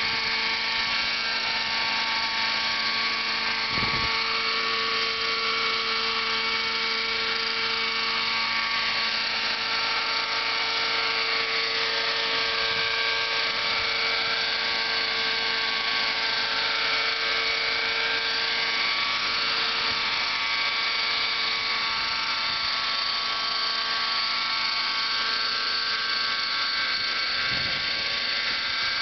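Nitro RC helicopter's glow engine running at high revs in a low hover, with the spinning rotors. It makes a steady, high-pitched whine whose pitch wavers slightly up and down.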